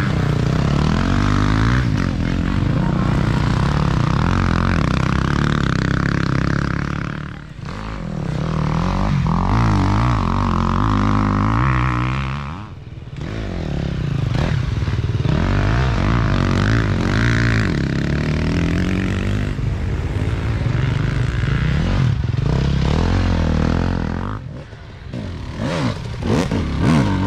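Off-road dirt bikes racing past one after another, their engines revving up and dropping off as the riders work the throttle and shift gears. The sound falls away briefly three times in the lulls between bikes.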